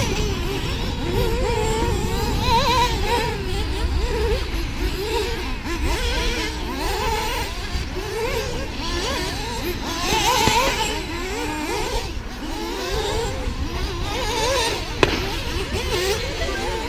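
Several radio-controlled off-road buggies racing, their motors whining in overlapping pitches that rise and fall as they accelerate and brake, over a low rumble, with a couple of sharp clicks near the end.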